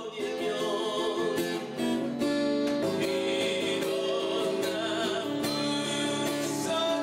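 A man singing into a microphone while strumming an acoustic guitar, amplified through a small floor speaker. The playing grows louder about two seconds in.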